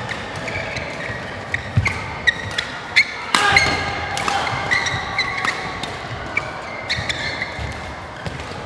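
Badminton rally: rackets striking the shuttlecock in quick succession, several sharp hits a second, with short squeaks of court shoes on the floor mat between them.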